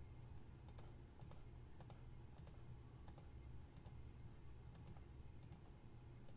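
Faint clicks of buttons pressed on a TI-84 Plus Silver Edition graphing calculator keypad, irregular, about one to two a second, as an integral is keyed in.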